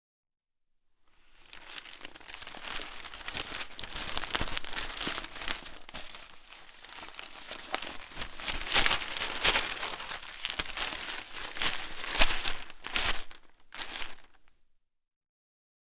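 Newspaper pages being handled and turned: a crisp, crackling rustle of thin paper that starts about a second in, with louder sharp snaps near the end before it stops.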